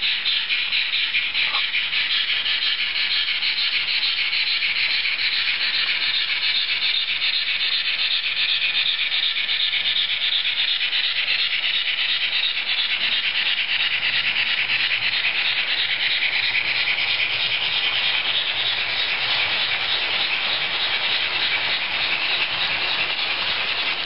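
ESU digital sound decoder in a Roco HO-scale BR 03.10 model steam locomotive playing rapid, steady exhaust chuffs through its small onboard speaker, thin and hissy with little low end.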